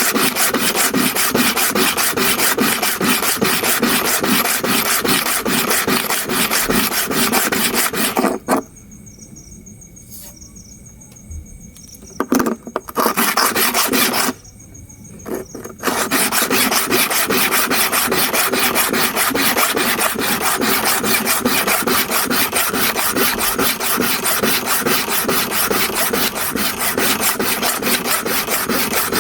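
Hair clipper blade being rubbed back and forth on an oiled diamond sharpening stone dressed with abrasive powder: a fast, steady rasping of metal on stone. The strokes stop twice, for about three seconds starting some eight seconds in and again briefly about fourteen seconds in.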